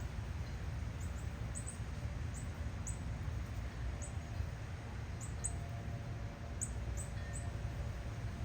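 Honeybee hive humming steadily, a low drone with no speech over it. Faint, short, high-pitched chirps come irregularly, several times a second at some points.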